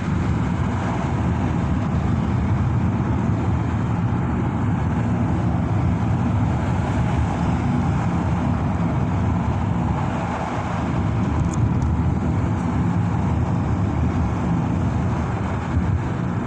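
Steady road and engine noise heard inside a moving car's cabin at speed, a low, even rumble with no break.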